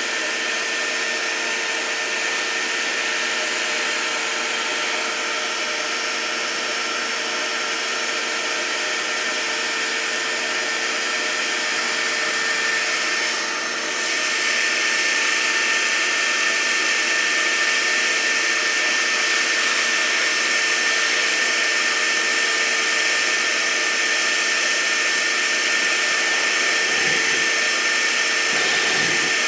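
Wet/dry shop vacuum running steadily with a constant motor whine, its hose hooked to the wood gasifier to draw air through it for a cold start. It gets louder about halfway through.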